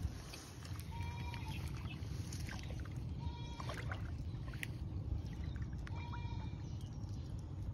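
Shallow pond water sloshing as a man wades in with a cast net, over a steady low rumble. A short, high, flat call comes back several times, about a second or so apart.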